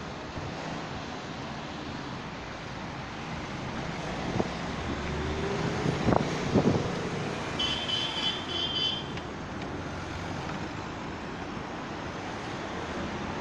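Road traffic: cars passing close by with steady engine and tyre noise and a few knocks. About eight seconds in there is a short run of quick high-pitched beeps.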